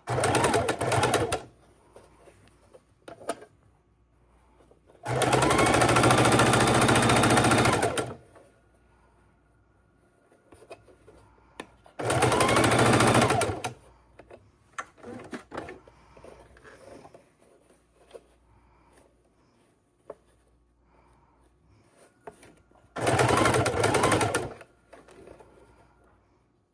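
Sewing machine stitching bias tape onto fabric in four short runs, stopping and starting between them, with faint handling clicks in the pauses.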